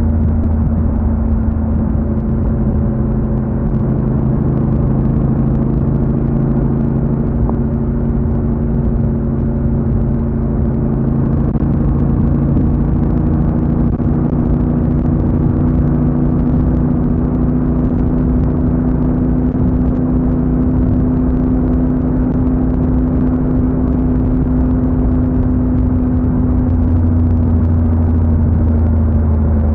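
Honda NC750X motorcycle's parallel-twin engine running at a steady pitch while riding, with a mild change in the engine note near the end.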